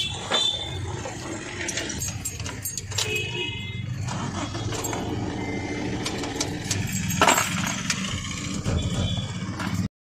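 Clicks and clinks of the key being worked in a Honda Amaze's freshly repaired ignition lock, with a sharp click about seven seconds in, over a steady low rumble.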